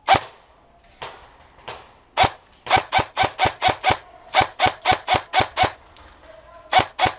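Ares Amoeba AM-013 airsoft electric rifle firing on semi-auto: a few single shots, then quick strings of trigger pulls at about five shots a second, each a short sharp crack.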